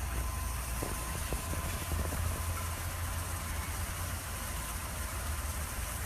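A motor vehicle's engine running steadily at idle, a constant low rumble with a faint thin hum over it.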